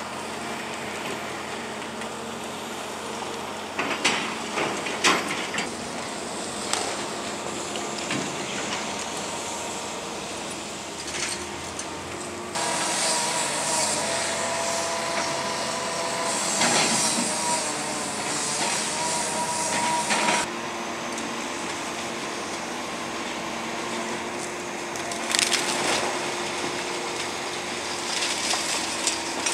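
A John Deere 350D excavator's diesel engine runs while its bucket tears into a building's wooden framing: wood cracks and splinters and debris crashes down, with the loudest sharp cracks about four to five seconds in and again near twenty-six seconds. For several seconds in the middle a steady high whine joins in.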